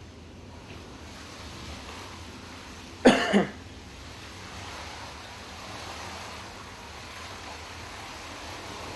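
Steady rushing noise of hurricane wind and storm-surge water. About three seconds in it is cut by one short, loud burst of a voice.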